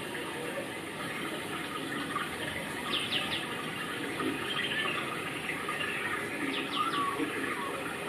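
Steady rush of running water with a bird chirping briefly twice, about three seconds in and again near seven seconds.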